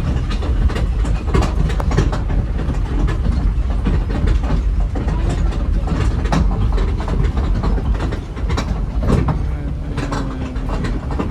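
Park toy train running on its track: a steady low rumble with irregular clacking of the wheels over the rails.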